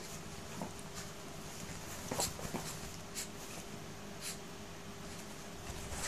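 Dog and kitten play-fighting on a bed: scattered scratchy rustles of the bedsheet and paws scrabbling on the fabric, loudest about two seconds in, over a faint steady hum.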